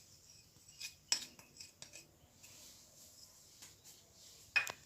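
Faint clinks and taps of small dishes against a bowl as dry ingredients are tipped in, with a sharper knock near the end.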